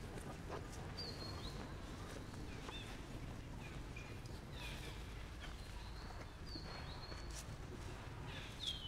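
A few short, high-pitched whistled animal calls, some held briefly before dropping in pitch. They come at irregular intervals over a steady outdoor background hum.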